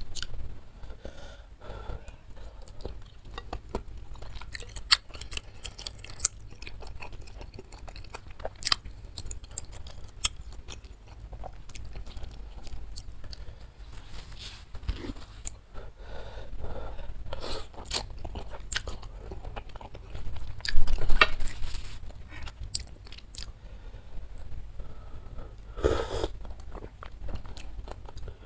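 Close-up chewing and wet mouth clicks of a person eating spicy instant noodle soup and chewy tapioca-flour meatballs (bakso aci), with slurps of noodles and broth, one of them louder about two thirds of the way through.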